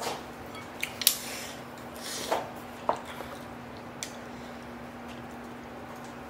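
A few light clicks and clinks of wooden chopsticks against a ceramic bowl and a glass jar, scattered over the first four seconds, the sharpest a little after one second, over a faint steady hum.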